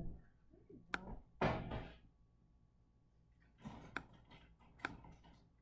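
Three sharp computer-mouse clicks, about a second in, near four seconds and just before five seconds, with a short burst of breathy noise soon after the first click.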